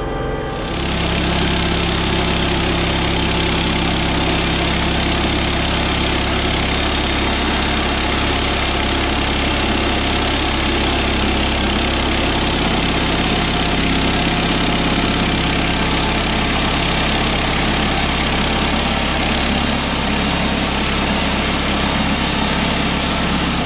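Woodland Mills HM126 portable bandsaw mill sawing a pine log: the mill's engine runs steadily under load while the band blade cuts through the wood with a dense, steady hiss.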